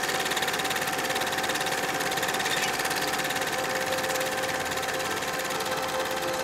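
Film projector running: a rapid, even mechanical clatter over a steady hum.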